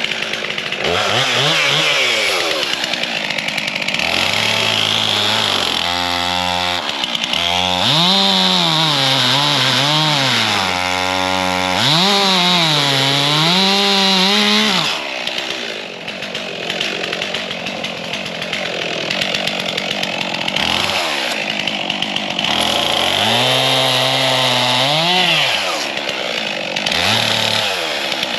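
Stihl MS 362 two-stroke chainsaw bucking a poplar log into firewood lengths. The engine revs up, its pitch sags and recovers as the chain bites into the wood, and it drops back between cuts a couple of times.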